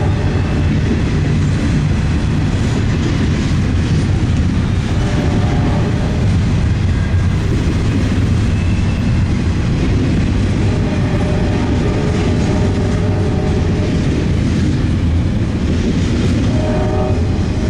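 A train rolling past close by: a loud, steady rumble of the locomotives and cars, with the clickety-clack of wheels on the rail joints.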